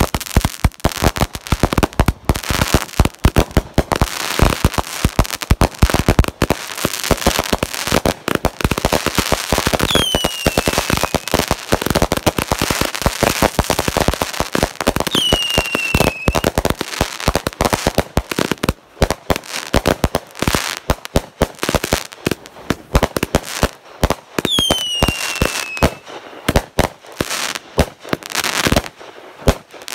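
A chain of Winda Fireworks 200-gram consumer cakes fused together, firing in a dense, continuous barrage of launch thumps and crackling bursts. Three short falling whistles cut through, about ten, fifteen and twenty-five seconds in.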